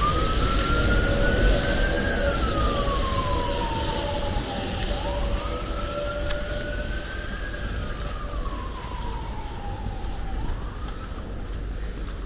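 Emergency vehicle siren in a slow wail, its pitch rising and falling about every five seconds, over a low rumble. It grows gradually fainter toward the end.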